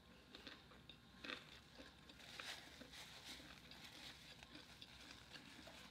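Near silence: room tone with a few faint soft clicks.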